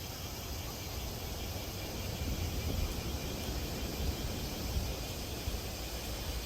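Cicadas droning steadily in a continuous hiss-like chorus, over a low, uneven rumble.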